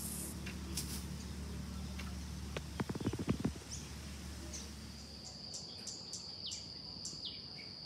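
Birds chirping in short falling calls, with a brief cluster of quick clicks about three seconds in. From about halfway on, an insect sings a steady high-pitched drone.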